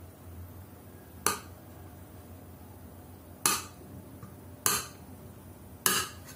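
A metal spoon knocks against a plastic bowl four times, a second or two apart, as it chops pieces of fried tempeh.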